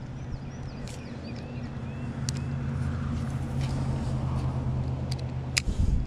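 A steady low hum runs through, with a few sharp clicks and small birds chirping over it.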